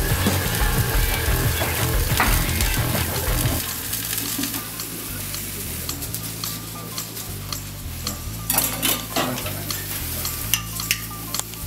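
Meat sizzling on a wood-fired parrilla grill over embers, with metal tongs clicking against the food and grate several times in the second half. Background music runs underneath, loudest in the first few seconds.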